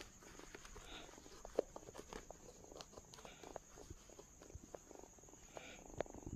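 Crickets trilling steadily in the background, with scattered soft clicks and rustles of handling and movement close to the phone.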